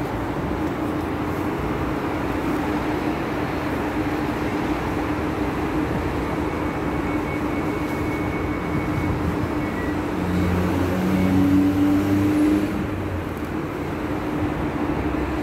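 ES2G electric multiple unit running: a steady rumble with a low hum. The hum swells louder for a couple of seconds about ten seconds in, then settles.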